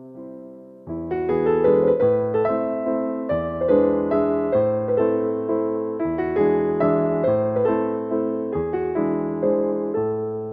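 Calm piano music: a slow melody over held chords. The notes fade briefly at the start, and new ones come in about a second in.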